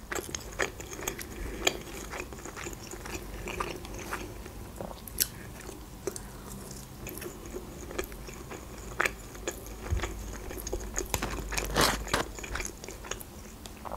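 Close-miked chewing and biting of fried chicken nuggets, with scattered wet mouth clicks and crunches and a brief cluster of louder clicks near the end.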